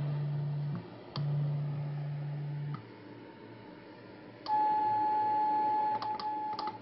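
CW beat-note tone from a ham radio receiver picking up the keyed Si5351 VFO signal. It starts as a low beep of under a second and a longer one of about a second and a half, then changes to a higher steady tone held for about a second and a half. Near the end that tone breaks into several short Morse dots as a straight key is tapped.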